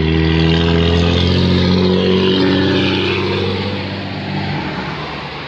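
An engine passing close by: a low, steady drone with higher tones that drift down in pitch, fading near the end.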